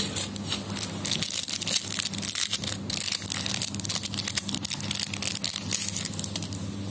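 Crinkling and crackling of a trading-card booster pack's foil wrapper being handled and torn open: a dense, irregular run of crackles lasting about six seconds, over a steady low hum.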